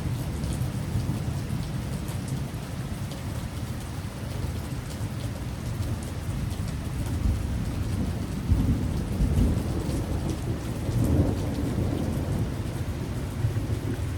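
Heavy rain falling steadily in a thunderstorm, with low rolling thunder that swells in the second half.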